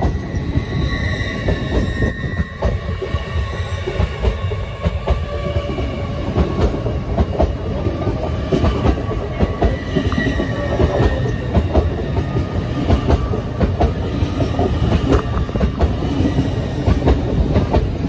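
LNER Azuma train rolling past close by, its wheels clicking and clattering over rail joints and points over a steady low rumble. Faint high wheel squeal rises and fades, about a second in and again around ten seconds in.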